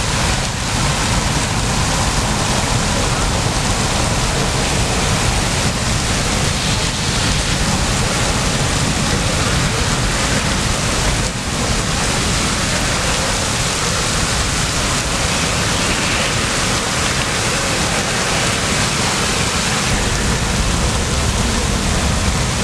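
Steady, loud rushing of a large fuel fire burning in an industrial live-fire training prop, mixed with the spray of firefighting hose streams. There is a brief dip about eleven seconds in.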